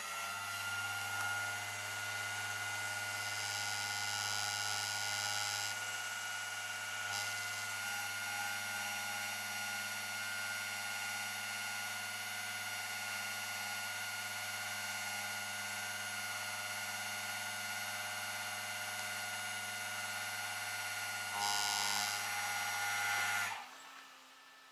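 Rollback tow truck's hydraulic winch system running as a car is let down the tilted bed on its cable: a steady mechanical whine over a low hum, a little louder near the end before it cuts off suddenly.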